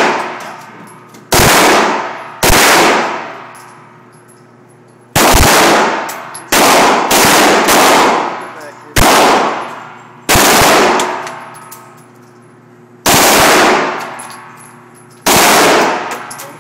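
An MP5K submachine gun fired on full automatic in about ten short bursts, each lasting about half a second. Every burst is followed by a long echoing decay.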